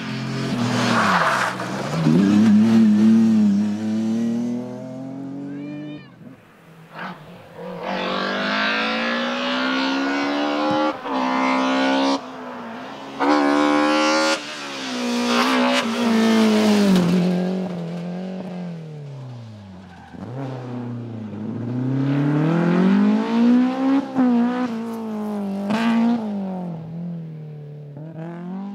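Rally cars driven hard on a special stage, engines revving up and dropping back again and again through gear changes, in a string of short clips with abrupt cuts between them.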